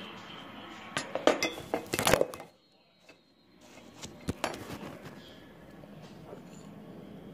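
Handling noise from the camera being picked up and re-aimed: a series of sharp knocks and clicks, with about a second of near silence a couple of seconds in.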